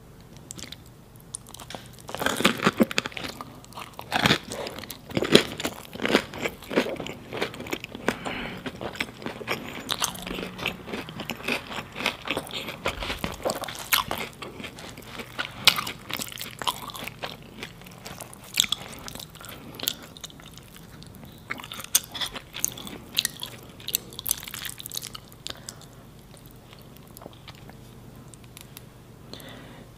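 Close-miked eating of cheesy pizza topped with spicy instant noodles: crunchy bites and chewing with many sharp crackles. The crunches start about two seconds in, come thickly through the first half, and thin out toward the end.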